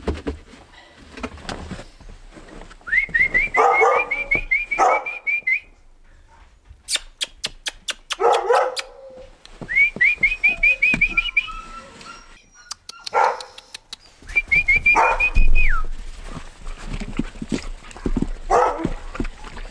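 Hungry Siberian husky puppies whining and yipping, with three runs of quick, high, whistling chirps and a run of sharp clicks about seven seconds in.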